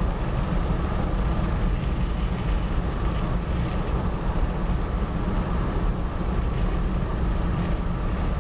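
Jeep Wagoneer driving at road speed: a steady low rumble of engine and road noise.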